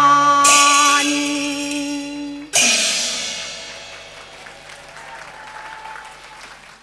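Closing bars of a Cantonese opera accompaniment: held instrumental notes, then a cymbal crash about half a second in and a second crash at about two and a half seconds. The music rings on and fades away toward the end.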